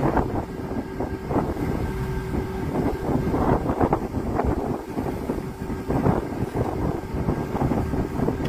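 Wind buffeting the microphone in uneven gusts over a continuous low rumble, with a faint steady hum running underneath.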